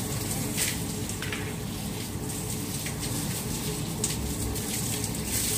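Water running steadily from a garden hose, an even hiss with no breaks.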